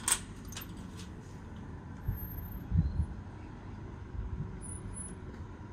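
Metal security screen door's latch clicking as it is unlocked and opened, a sharp click at the start and a couple of lighter clicks just after. Then a few dull low thumps over a low, steady background rumble.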